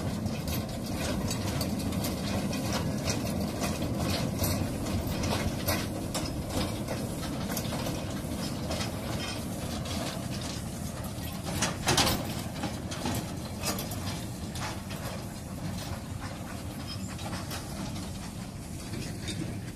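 Narrow-gauge steam locomotive hauling a train of small tipper wagons past: a steady rumble with many irregular clicks and knocks from the wagons, and one louder knock about twelve seconds in.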